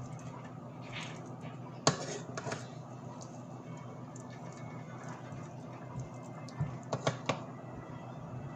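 Black plastic slotted spatula scooping and turning cooked biryani rice in a pot: soft rustling of the rice with a few sharp knocks of the spatula against the pot, the loudest about two seconds in and two more near seven seconds, over a faint steady hum.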